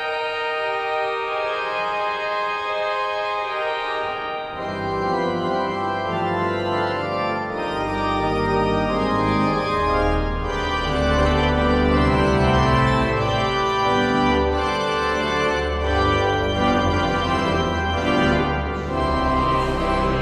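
Church organ playing slow, sustained chords. Deep pedal bass notes come in about four seconds in, and the sound grows fuller and a little louder from about eight seconds.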